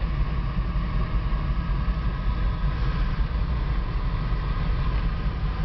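Citroën SM's 3-litre Maserati V6 running steadily, heard from inside the cabin as a low rumble.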